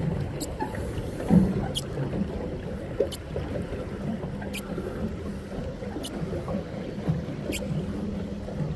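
Pedal boat being pedalled across a lake: steady low churning and splashing of water, with a sharp click about every second and a half and one louder knock about a second in.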